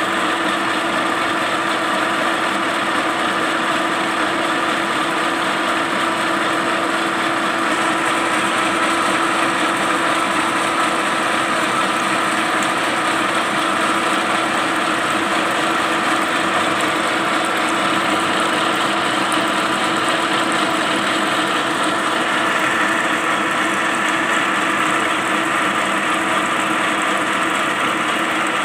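Lathe running steadily under power, its motor and gear train giving a constant hum with a steady whine, while a single-point tool cuts the spinning metal workpiece under a stream of coolant water.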